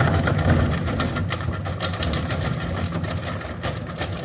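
Washing machine running with apples inside: a steady low motor-and-drum hum with rapid rattling and clatter from the load throughout.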